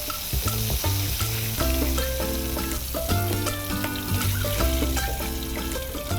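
Breadcrumb-coated shrimp deep-frying in hot oil, a steady sizzle, with background music underneath.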